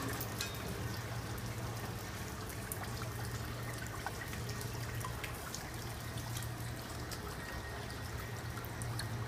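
Water trickling and dripping inside a cooling tower's sump, over a steady low hum.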